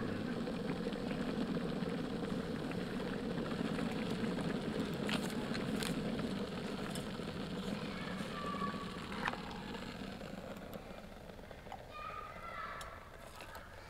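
Electric kettle rumbling as it heats water, dying down after about ten seconds, with a few light clicks along the way. Near the end, hot water is poured into a stainless steel camping mug.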